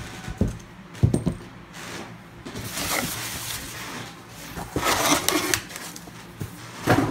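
Cardboard box and packing being handled by hand: a few sharp knocks of cardboard in the first second and a half, then bouts of rustling and scraping as paper and inserts are pulled out.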